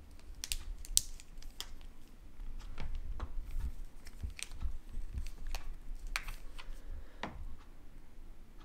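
Scattered light clicks and taps of two wired HVAC dual run capacitors being handled and turned over in the hands: metal cans and crimped spade connectors knocking together. The clicks are irregular and thin out near the end.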